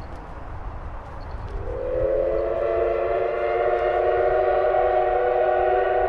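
Steam locomotive whistle blowing one long chord of several tones, coming in about a second and a half in, swelling at first and then held steady.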